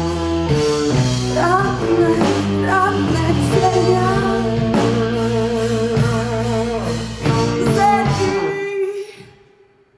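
A woman singing with a live band, with guitar under her voice, ending a song on held, wavering notes. The band stops about eight and a half seconds in and the last note rings away to near quiet.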